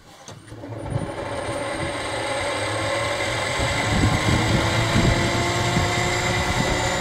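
Benchtop thickness planer with freshly sharpened knives, switched on about half a second in and running, getting louder over the next few seconds as a board is fed through and planed.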